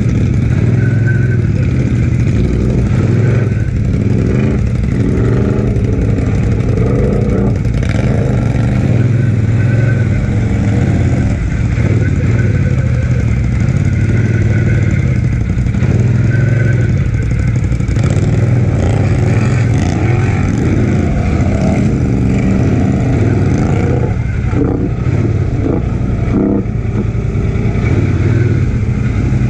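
Polaris Sportsman 1000XP ATV's twin-cylinder engine running steadily at low speed while the quad wades through muddy creek water.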